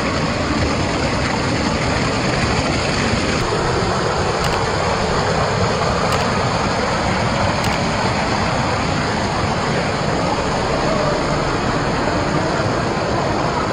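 Steady rushing of a stream and small waterfall cascading over rocks.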